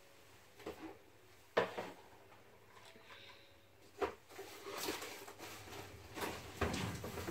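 Kitchenware being set down and handled on a steel-topped counter: two sharp knocks, about a second and a half in and again about four seconds in, as a mug and a stainless steel mixing bowl are put down, then lighter clattering and rustling.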